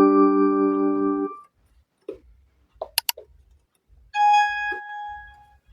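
Casio CT-S1 keyboard: a held electric piano chord fades out about a second in. A few sharp clicks follow in the pause, and then a single held note sounds in a new tone near the end.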